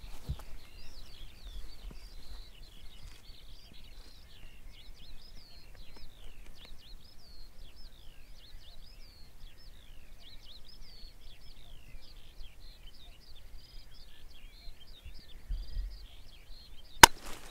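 A chorus of songbirds singing, with many quick, overlapping high chirps and trills, over a faint low rumble. A single sharp click comes near the end.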